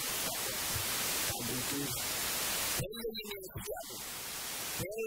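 A man's voice preaching into a microphone, heard over a steady loud hiss. The hiss fills the first half, and his speech comes in at about three seconds and again near the end.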